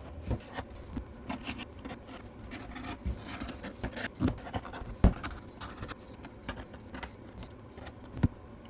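X-Acto hobby knife blade scratching and scraping in short, irregular strokes, with scattered small ticks and a sharp click about five seconds in and another near the end.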